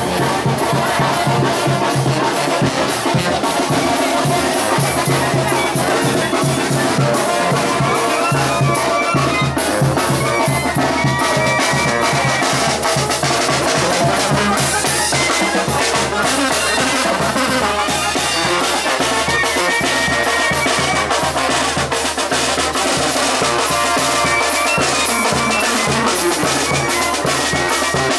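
Live Mexican brass band (banda) playing: brass instruments carry the tune over a bass drum and cymbals keeping a steady beat.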